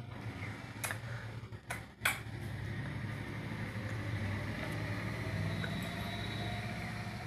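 A few sharp clinks of a metal spoon against a steel bowl, about a second in and twice about two seconds in, over a steady low hum.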